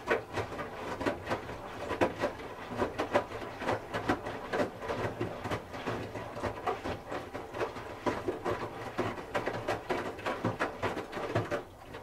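Hoover H-wash 300 Plus washing machine tumbling wet laundry in its drum during the wash: a rapid, uneven run of thuds and knocks as the clothes drop and hit the drum, over a faint motor hum. It stops shortly before the end as the drum comes to rest.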